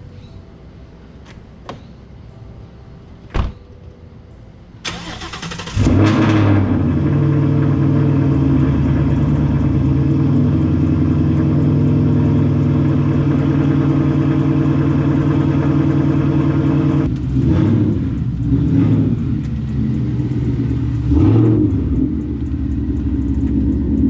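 A single thump, then about five seconds in the 2018 Mustang GT's 5.0-litre V8 is cranked and fires with a loud flare. It settles into a steady, loud idle, then is revved briefly a few times near the end as the car moves off.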